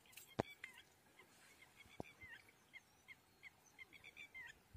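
Faint birds calling: a steady run of short chirping notes, some bending down in pitch. Two sharp clicks cut through, a loud one about half a second in and a softer one about two seconds in.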